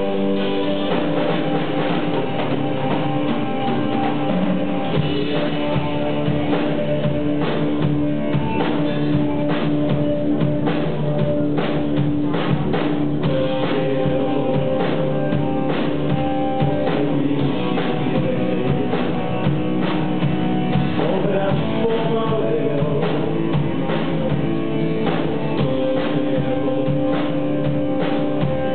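Live rock band playing: electric guitar and bass over a drum kit, with steady drum hits, heard from the audience in the room.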